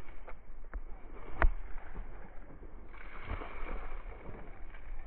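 Steady outdoor background noise with a low rumble and a few sharp knocks, the loudest about one and a half seconds in.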